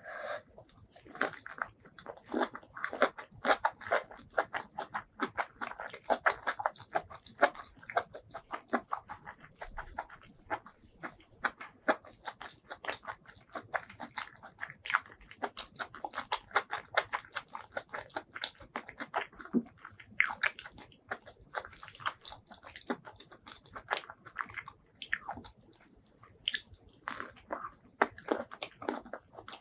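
Close-miked eating: a person biting and chewing food, a dense, uneven run of sharp wet clicks and smacks with a few short pauses.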